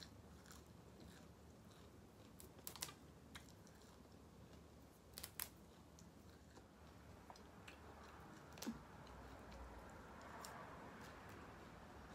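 Faint chewing with a few soft clicks and smacks, three short groups of them spread across otherwise near-silent sound.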